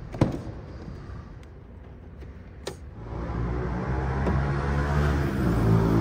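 Ford Mustang GT's 5.0-litre Coyote V8 running with a steady low rumble that swells in from about halfway through. A sharp click comes just after the start and a smaller one shortly before the engine sound rises.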